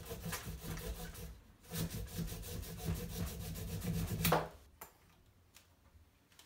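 3D-printed carbon-fiber PLA hand saw cutting a thin strip of wood in quick back-and-forth strokes, with a short pause about one and a half seconds in. The sawing stops a little over four seconds in, after one louder final stroke.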